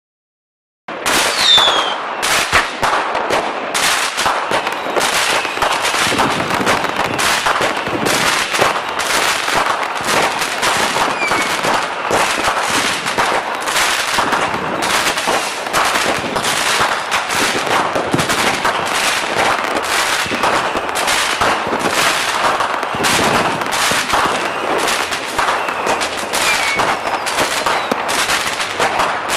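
Fireworks going off in a dense, unbroken barrage of rapid bangs and crackling, starting suddenly about a second in. A brief falling whistle comes just after the start.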